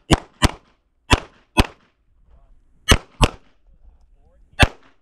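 CZ SP-01 Shadow 9mm pistol fired in quick double-taps: seven sharp shots in pairs a third to half a second apart, with a second or more between pairs while the shooter moves to the next target.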